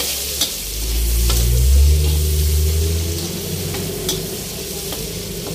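Pork, garlic and sliced onions sizzling in oil in a wok as a spatula stirs them, with a few sharp scrapes and taps of the spatula on the pan. A low rumble swells up about half a second in and fades after about three seconds.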